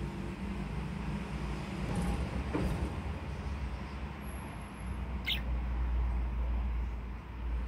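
A steady low rumble, with one brief high chirp from a yellow budgerigar about five seconds in.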